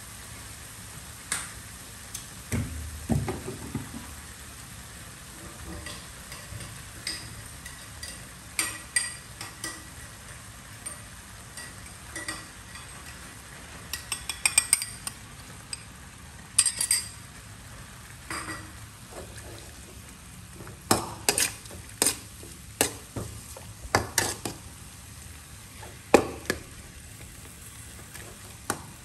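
A metal ladle scraping and clinking against a metal wok as sliced meat is stir-fried over a steady low sizzle. The strikes come in irregular clusters, thickest about two-thirds of the way through.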